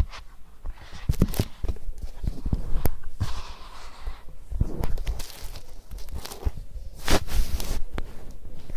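Homemade slime being squished and stretched in the hands close to the microphone: irregular sticky clicks, pops and rustles, with two louder bursts of handling noise a little after a second in and about seven seconds in.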